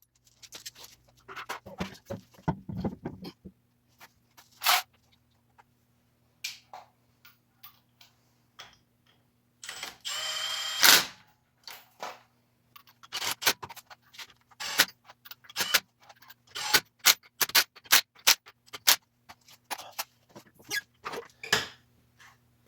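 Irregular metallic clicks and clinks of lug nuts and tools as a wheel is hung on the hub and its nuts are run on loosely. Halfway through there is a noisy burst of about one second.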